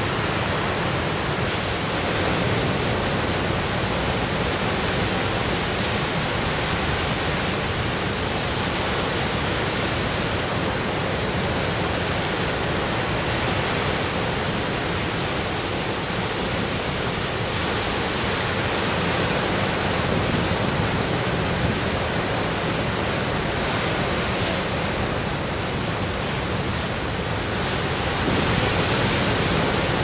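Big storm waves breaking on the Lake Superior shore: a dense, unbroken rush of surf at a steady level, with no separate crashes standing out.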